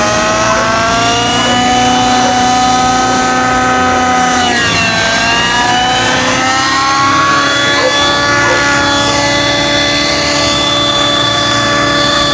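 Radio-controlled 3D helicopter's glow-fuel engine and rotor whining at high revs, the pitch rising as it lifts off, dipping sharply about four and a half seconds in and climbing back, then holding steady.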